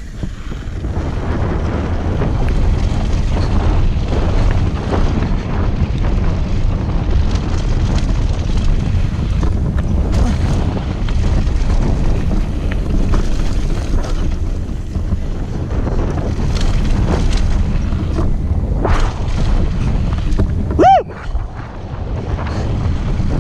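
Wind buffeting an action camera's microphone on a mountain bike descending a dirt jump line, with a steady low rumble of tyres and rattling over the packed dirt. A brief squealing tone sounds near the end.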